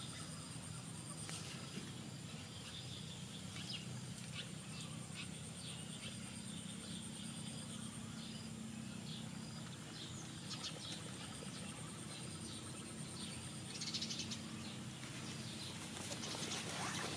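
Quiet outdoor ambience: short, high bird chirps scattered throughout over a steady low hum.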